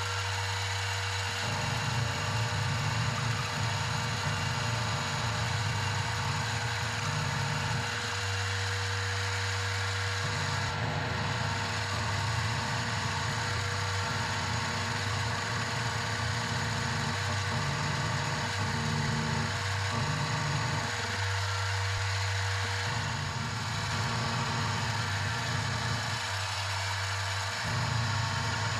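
Benchtop X2D mini mill running, its motor humming steadily while the end mill cuts a steel hold-down. A rougher low part of the cutting noise drops away for a second or two about three times.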